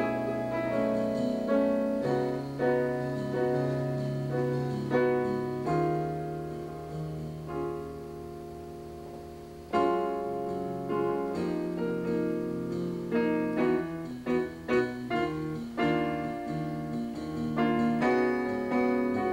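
Piano music, chords and melody notes played in a flowing, unhurried way; about halfway through a held chord fades away before playing comes back in with a sharp new chord.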